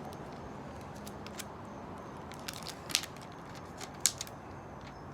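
Protective plastic film being peeled off a plastic phone case: faint crackling with scattered sharp clicks, the two loudest about three and four seconds in.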